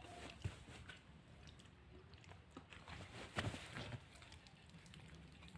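A person chewing and biting food close to the microphone, typical of eating chicken feet: faint scattered wet clicks, with a louder cluster a little past three seconds in.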